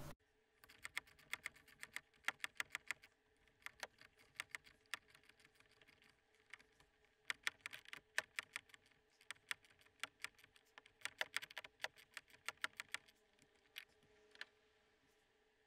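Quick, irregular runs of sharp plastic clicks, several a second with short pauses, as a hand turns the locking knob on a MaxTrax mounting pin.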